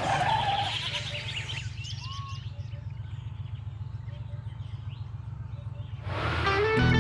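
A goat bleats briefly right at the start among a few bird chirps. A steady low drone of a car's cabin on the move follows, with a faint chirp now and then.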